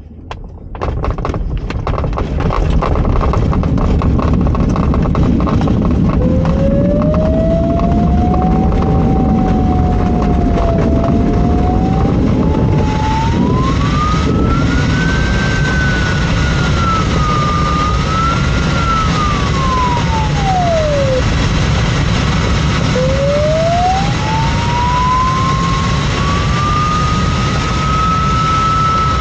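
LAK17B FES glider on an aerotow takeoff roll over a rough dirt strip: loud, steady rolling, rattling and airflow noise that builds up over the first couple of seconds. Over it, an electronic variometer tone slides slowly up and down in pitch, drops away about 21 seconds in, and rises again a couple of seconds later.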